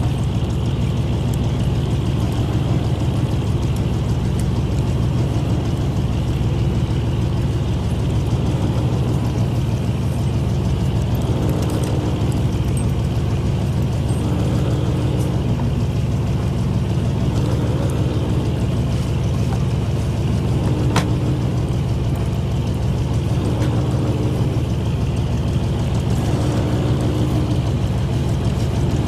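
Boat engine running steadily with a low, even drone, with one sharp click about two-thirds of the way through.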